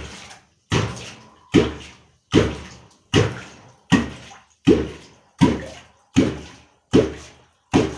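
A catfish kvok (wooden-handled metal call) struck into bathwater again and again, eleven strokes at a steady pace of about one every three-quarters of a second. Each stroke makes a sharp, deep plop that dies away quickly. This is the sound used to call catfish, here being practised with a wrist stroke.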